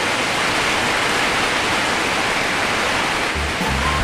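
Heavy rain pouring steadily in strong wind, a dense, even hiss.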